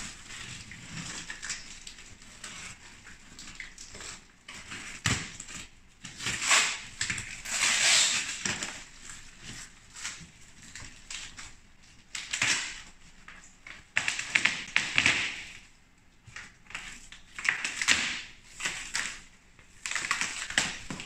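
A large cardboard shipping box being opened by hand: irregular bursts of tearing, scraping and rustling from packing tape and cardboard flaps.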